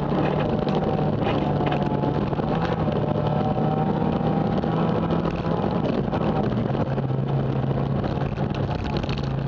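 Renault Megane rally car's engine running hard on a gravel stage, heard from inside the cabin, with a steady high engine note that drops slightly in pitch about two-thirds through. Gravel and road noise rattle underneath, with a few sharp clatters in the first few seconds.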